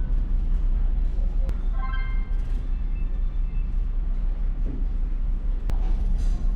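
Steady low rumble of a large car ferry's engines and hull under way, with a short pitched tone about two seconds in.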